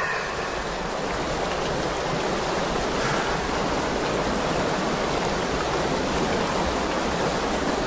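Steady rush of a fast-flowing stream running over rocks.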